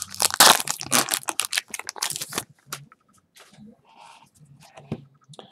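Trading-card pack wrapper crinkling and tearing as the pack is ripped open: dense crackling for about the first two and a half seconds. After that come quieter scattered ticks as the cards are handled.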